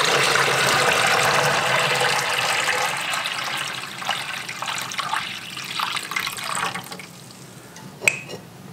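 Water poured from a pitcher into a plastic sous vide tub around a glass jar, filling the water bath: a steady splashing pour that thins out and stops about four seconds in. A few light knocks follow, and a sharp click near the end.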